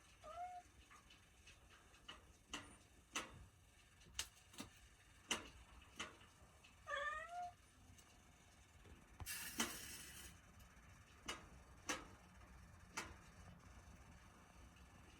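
A cat meowing twice in short calls, one right at the start and one about seven seconds in. Scattered light clicks and a brief rustle around nine seconds in.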